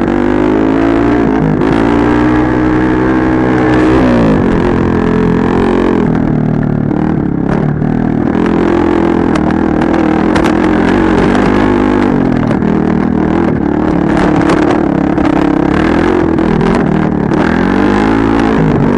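Dirt bike engine revving under way, its pitch climbing and falling again and again. Scattered knocks and clatter come in the second half.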